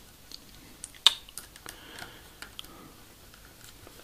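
Small clicks and taps of model-kit frame parts and screws being handled and fitted, with one sharper click about a second in.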